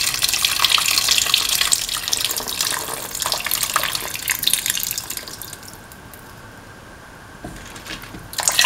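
Coconut milk poured in a thin stream into a steel pan of cauliflower and vegetables, splashing and trickling; the pour tails off about five seconds in.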